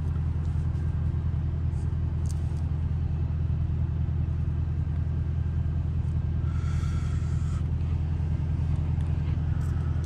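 Straight-piped 5.7-litre HEMI V8 of a 2021 Dodge Durango R/T idling with a steady, low drone, heard from inside the cabin.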